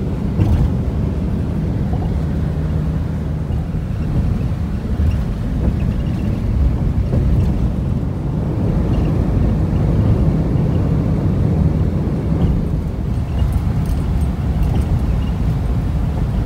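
Steady low rumble of engine and tyre noise heard from inside a vehicle's cabin while it cruises along a highway.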